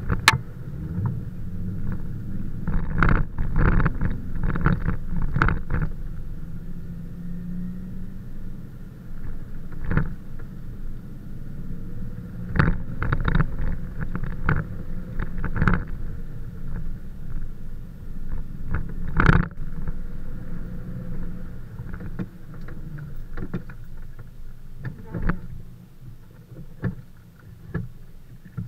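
Jeep Wrangler JK's V6 engine running at low speed as it wades through deep muddy puddles, heard from inside the cab, with water sloshing and splashing against the body and frequent sharp knocks and clunks as it crosses the ruts. The splashes and knocks are thickest in the first third and again around the middle, then ease off near the end as the track turns dry.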